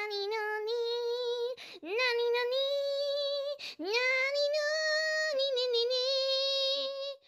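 A high voice singing a wordless "ahh" in three long held notes. Each note slides up at the start and then holds, and the last one is the longest.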